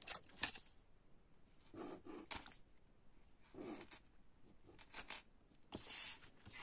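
Ballpoint pen drawn along a plastic ruler on paper, ruling a box: several short, faint scratching strokes, with the ruler shifting on the page.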